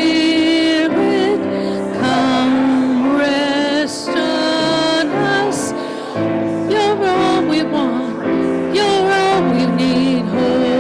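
Church worship music with singing voices, held notes that change pitch every second or so.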